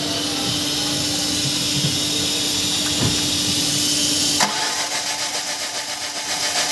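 Starter motor cranking a Tata Tiago's three-cylinder petrol engine without it firing, a steady hissing run that turns into an even pulsing about four seconds in. It is cranked to check for the injector pulse on a faulty cylinder-3 injector that is leaking petrol into the cylinder.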